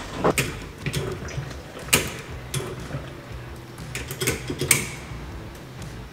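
A handful of sharp mechanical clicks and knocks, about five spread over the few seconds, over a low steady hum.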